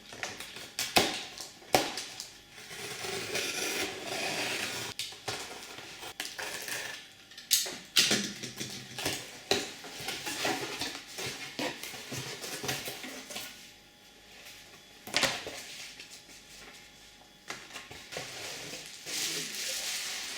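A package being opened by hand: packaging rustling and crinkling, broken by several sharp knocks and clatters as the box is handled.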